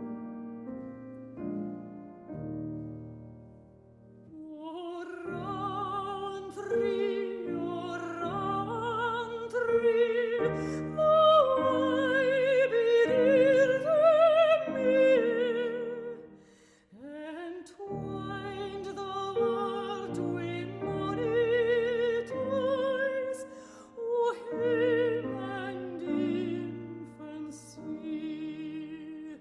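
Operatic singing with wide vibrato, accompanied by piano. The piano plays alone for the first few seconds before the voice comes in, and there is a brief pause past the middle.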